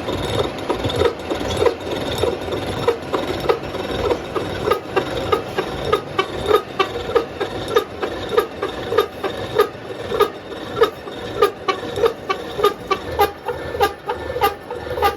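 Metalworking machine running with a regular metallic knock a little under twice a second over a steady clatter and ringing, typical of an interrupted cut while machining gear teeth.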